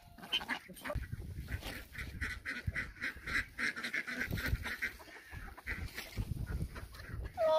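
Backyard ducks calling, a run of repeated calls through most of the clip over low rumbling noise.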